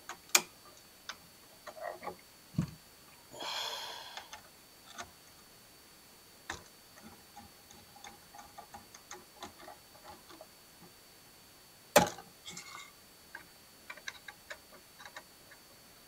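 Small scattered clicks and ticks of a screwdriver and wire on a dimmer switch's terminal screws as the wires are fastened, with a short scraping rustle a few seconds in and one sharper click about three-quarters of the way through.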